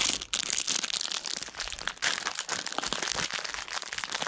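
Continuous dense crackling and rustling: a rapid run of fine clicks close together.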